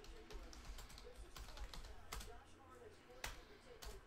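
Typing on a computer keyboard: faint, irregular key clicks.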